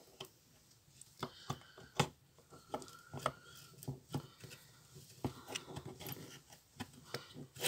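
Scattered light clicks and small plastic knocks from the greased gear train of a BMW N53 throttle body being turned and handled by hand.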